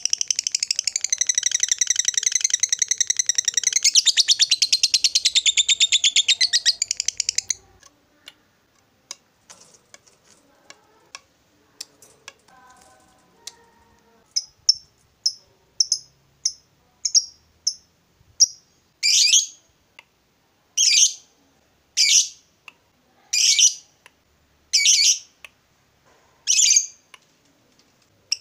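Fischer's lovebird giving its long 'ngekek' chatter: a fast, unbroken, high trill for about seven seconds. It breaks off into scattered clicks, then short chirps about two a second, and ends in loud sharp calls about every second and a half.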